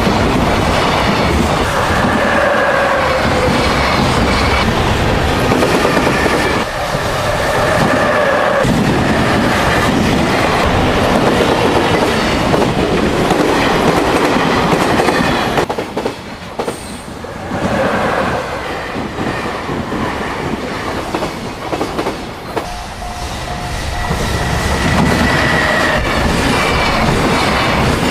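Electric-locomotive-hauled container freight train passing at speed, its wheels clacking over the rail joints, with drawn-out whining tones coming and going. The sound eases off for a few seconds in the middle, then builds to full strength again.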